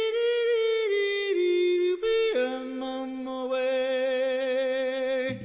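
Unaccompanied voices singing long held notes that step from pitch to pitch, with a second, lower voice joining about two seconds in to hold a harmony.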